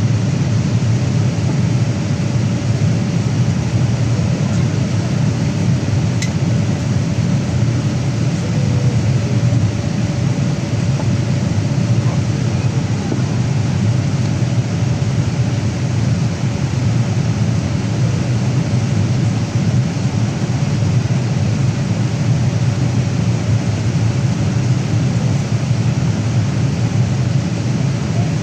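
Steady cabin noise inside a Boeing 787 Dreamliner on approach: a constant low rush of airflow and engine noise, with a faint steady hum running through it.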